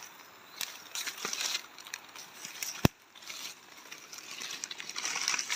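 Rustling and crackling of forest-floor leaves and plants brushed close to the microphone, with scattered small clicks and one sharp click about three seconds in; the rustling grows louder near the end.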